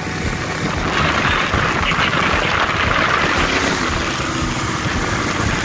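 The 5.3-litre LS V8 in a 1981 Miller jet boat running steadily under way, with a rush of water and spray from the jet's wake that grows louder about a second in.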